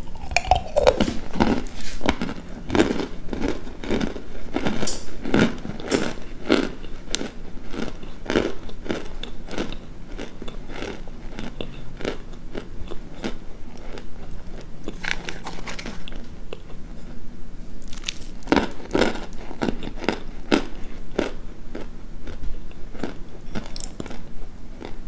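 Chunks of boiled-and-baked cornstarch brick being bitten into and crunched in a crunch test: a run of crisp, dry crunches, densest in the first half, with a short lull before a cluster of louder crunches later on.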